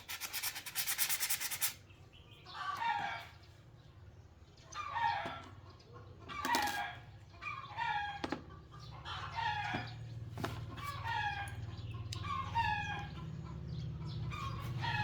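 A short, dense rasping or scraping noise at the start, then a bird, likely a chicken, calling again and again. Each call falls in pitch and comes about once a second over a low steady hum.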